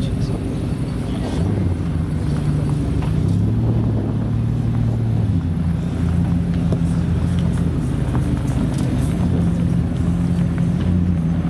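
Ferrari Portofino M's twin-turbocharged V8, its rear silencers removed, running at low revs as the car pulls slowly away, a steady low engine note with small shifts in pitch.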